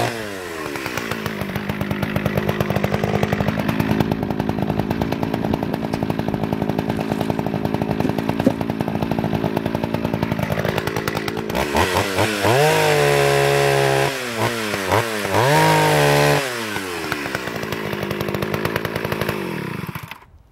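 Partner R21T two-stroke chainsaw coming off a cut, its revs falling straight to idle, then idling for about ten seconds. Near the middle it is blipped up to high revs several times, drops back to idle and cuts off suddenly near the end: a rescued saw test-running on fresh fuel after only a carburettor clean.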